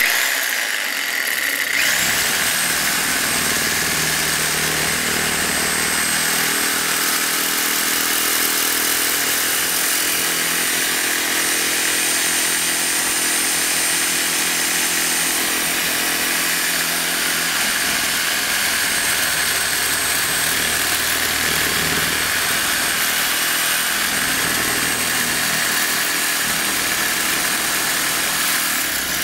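Power saw cutting steadily through the steel shell of an air-conditioner compressor, a continuous hissing cut with a thin high whine that sets in about two seconds in.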